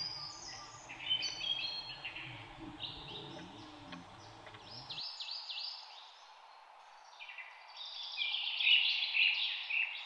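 Songbirds chirping and calling in quick, overlapping high notes, busiest and loudest about eight to nine seconds in. A low background rumble drops away about halfway through.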